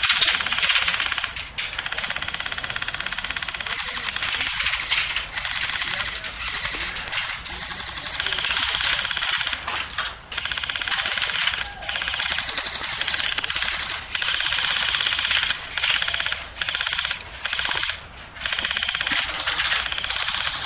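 Airsoft electric guns firing on full auto: a rapid, dry ticking rattle in long bursts with short pauses between them.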